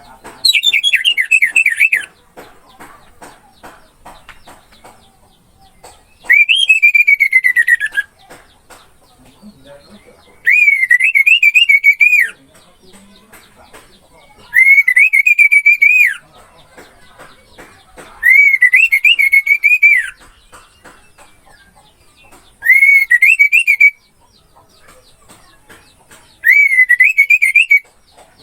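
Orange-headed thrush (anis merah) singing: seven loud, clear whistled phrases of about two seconds each, roughly every four seconds, some warbling and some sliding downward in pitch.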